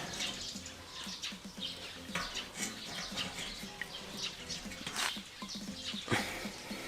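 Two sharp knocks a little over a second apart, about five and six seconds in, from work bending a motorcycle's gear shift lever back into shape, over a faint background with light chirping.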